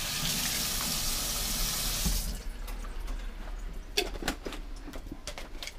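Kitchen tap running into the sink as a jar lid is rinsed under it, shut off about two seconds in. A series of light clicks and knocks follows.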